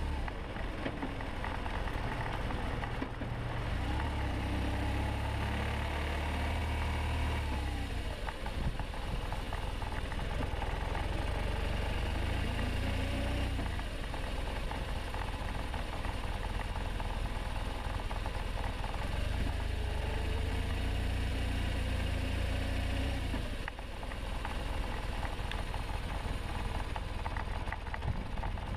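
2009 BMW R1200RT's boxer-twin engine running while the bike is ridden, its note rising and falling with the throttle. The level drops briefly twice, about eight seconds in and again about twenty-four seconds in.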